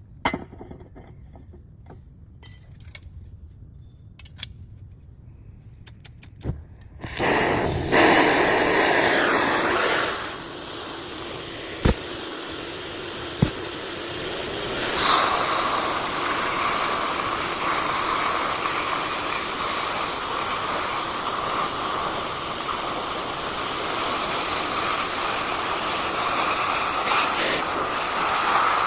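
A few faint clicks and handling sounds, then about seven seconds in a metal-cutting torch, most likely a plasma cutter, starts with a loud steady hiss and keeps running as it cuts steel along a guide.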